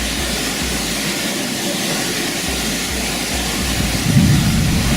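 Waterfall: a steady rush of falling water, with a louder low rumble about four seconds in.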